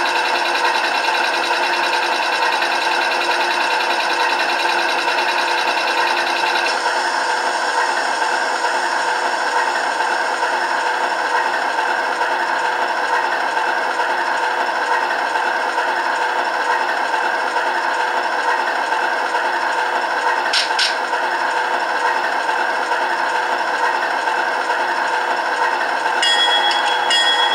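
HO-scale GE AC4400CW model's DCC sound decoder playing a diesel engine idling steadily through its small cell-phone speakers wired in series, thin and with little bass. There is a short click about 21 s in, and near the end a steady high tone joins in.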